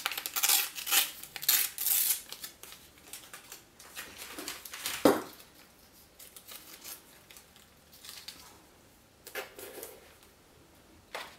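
Blue masking tape being torn and handled by hand: a quick run of ripping and crinkling in the first two seconds, one sharp click about five seconds in, then quieter handling with a few more crackles near the end.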